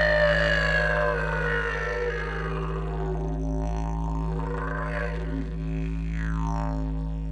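Background music: a steady low drone with higher tones that glide slowly downward.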